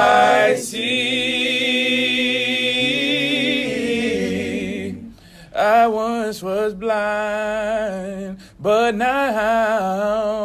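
A man singing solo a cappella. He holds one long note with vibrato for about four seconds, then sings two shorter phrases with a breath between them.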